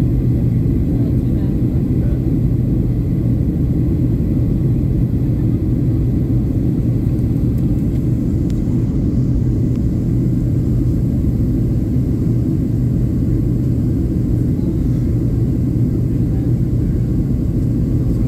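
Steady low roar of a Boeing 737-800 cabin in flight, from its CFM56 jet engines and the airflow over the fuselage, with an even low hum running through it; the airliner is descending toward landing.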